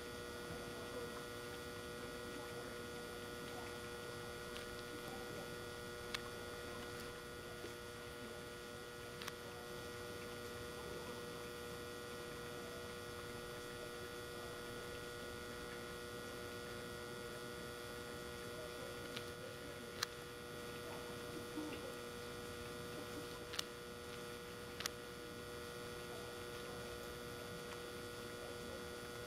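Steady electrical hum made of several constant tones, with a few faint isolated clicks.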